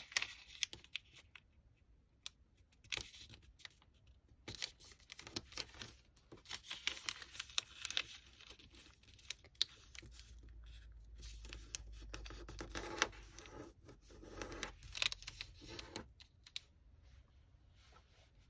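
A sheet of origami paper being folded by hand: irregular crisp rustles, scrapes and light taps as the edges are folded to the middle and the creases pressed flat with the fingers. The sounds stop near the end.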